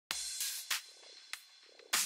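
Electronic music with sharp percussive hits about every half second.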